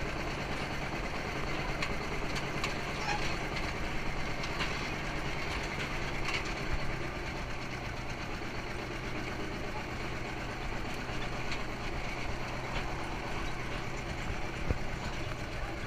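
Farm tractor engine running steadily as it tows the ride, a constant low hum with scattered clicks and knocks.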